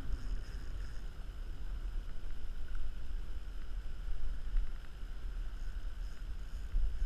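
Wind buffeting the camera microphone as a low, steady rumble, over small waves lapping against a plastic kayak.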